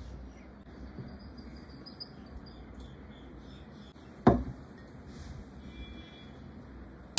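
A single sharp knock a little over four seconds in, over a quiet steady background with faint high chirps.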